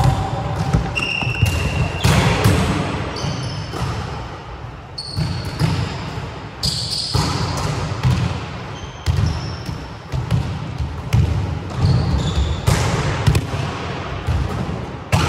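Volleyballs being struck and bouncing on a wooden sports-hall floor, a steady run of irregular thuds. Short, high squeaks of court shoes on the boards come in here and there.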